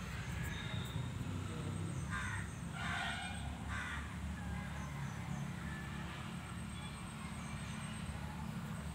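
Crow cawing: three harsh caws in quick succession about two to four seconds in, over a steady low rumble.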